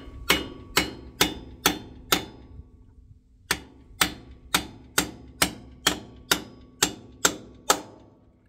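Hammer blows on a bushing driver, knocking new split clutch-shaft bushings into their bore on a Ferguson TO20 tractor. The strikes come about two a second with a short metallic ring after each: a run of five or six, a pause of about a second, then about ten more.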